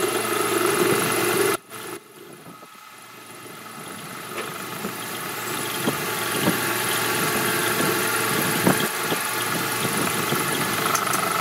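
Metal lathe running while its cutting tool turns a forged steel truck axle spindle, a steady machining hum with a few scattered sharp ticks. The sound drops out briefly about a second and a half in, then builds back up over several seconds.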